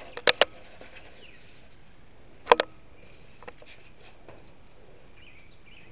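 A sheet of paper being folded and creased by hand on a wooden tabletop, with a few sharp crackles and taps: a close pair just after the start and the loudest one about two and a half seconds in.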